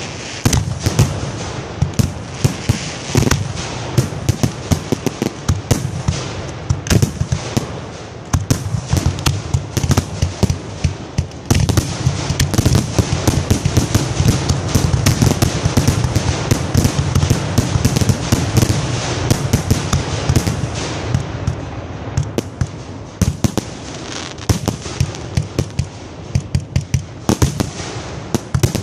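Fireworks finale barrage: many loud, overlapping bangs of shells launching and bursting, several a second, over a continuous rushing noise.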